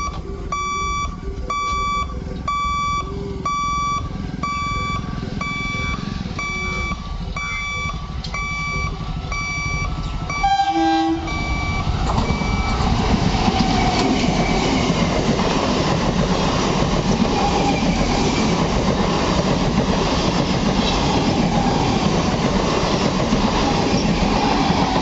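Level-crossing warning beeper sounding in steady, evenly spaced beeps, a little under two a second, which stop about twelve seconds in. A short train horn blast sounds about eleven seconds in. An EMU local train then passes close by with a loud rumble and wheel clatter.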